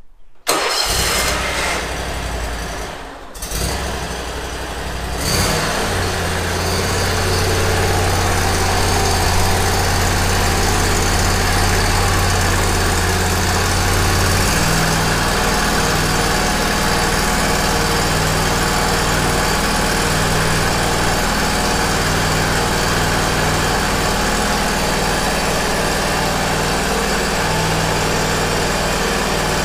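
Toro 708cc V-twin engine on a zero-turn mower starting up and running steadily. It has just been refilled after an oil change and is run briefly to fill the new oil filter. There is a short dip in sound about three seconds in, and the low hum shifts pitch about halfway through.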